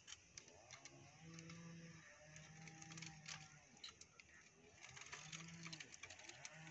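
Faint clicks and rustling of twigs against a homemade plastic-bottle fruit picker on a pole as it is worked through a lemon tree's branches to grip a lemon. Behind it, a faint low pitched sound comes and goes in short phrases.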